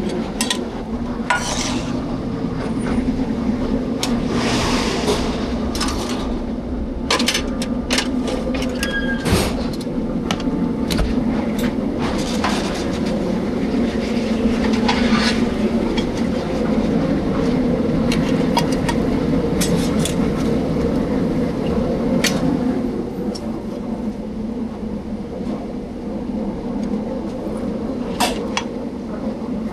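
Busy commercial kitchen at work: a steady low ventilation drone with frequent clinks and clatter of pans and utensils, and a short burst of hiss about five seconds in.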